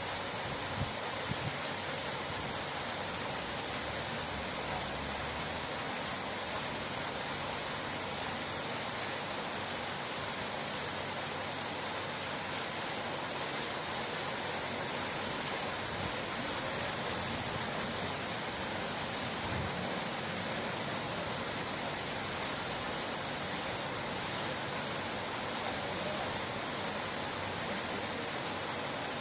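Steady rushing of running water, an even, unbroken hiss.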